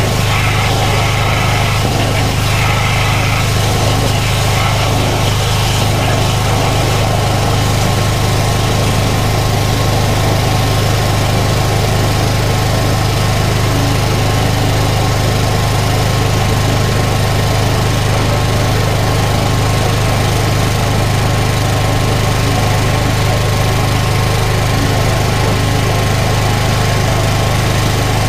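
Engine of a drain jetting machine running steadily at a constant speed, with a strong low hum that does not change.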